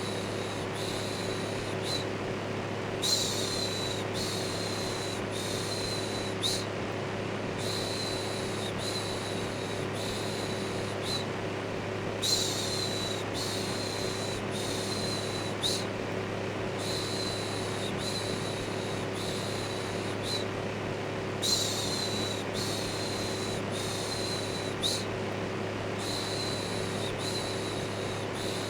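Electric fan running steadily with a low hum, overlaid with a looped "shhh" shushing: a high hiss in short repeated strokes, with a stronger shush about every nine seconds.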